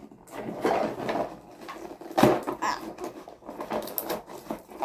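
A cardboard toy box being pried open by hand: irregular rustling and crackling of cardboard and packaging, with a louder sharp crack about two seconds in.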